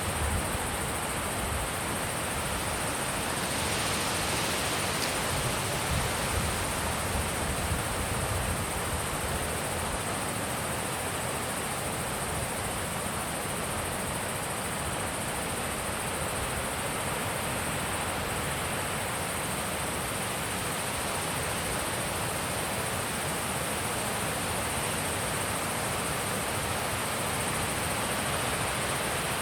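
Wind blowing steadily over a mountain pond, an even rushing with low gusty rumble on the microphone in the first several seconds that then settles.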